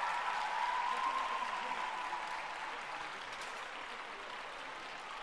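Audience clapping, slowly dying away, with a faint steady tone underneath that fades out about halfway through.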